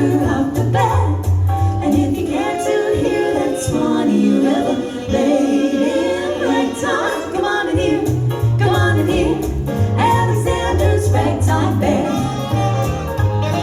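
Female vocal group singing a vintage 1940s-style number in harmony over band accompaniment with a stepping bass line.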